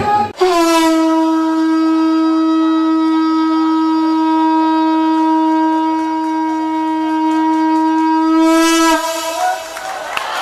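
Conch shell (shankh) blown in one long, steady note that stops about nine seconds in.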